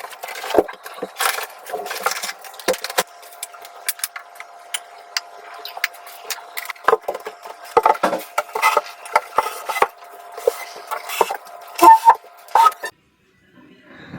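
Irregular knocks, clatters and rubbing of hard objects being handled, over a faint steady hum; it all stops abruptly near the end.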